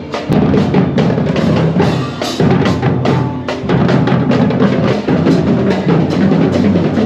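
Loud drum-led music with a steady beat, bass drum and sharp wooden-sounding percussion strokes.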